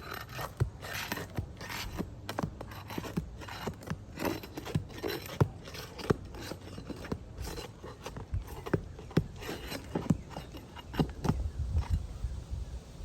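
Roofing nails being pried out from under asphalt shingles: shingles scraping and rasping, with many irregular sharp clicks and knocks of metal on the nails and the roof.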